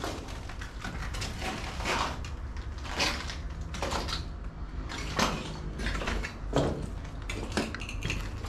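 Footsteps crunching and scraping over broken plaster and rubble, an irregular series of sharp crunches about once a second over a steady low rumble.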